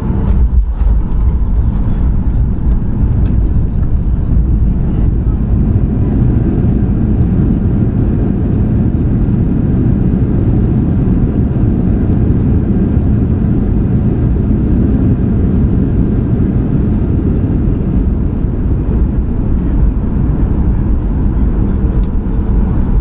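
Steady in-flight noise of a Boeing 737-800 on approach: a constant low rumble of engines and airflow.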